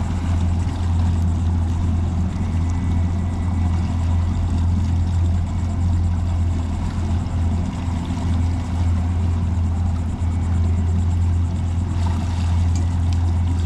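Outboard motor of a Pursuit C238 center-console boat running at a steady speed under way: a constant low drone with an even hiss over it.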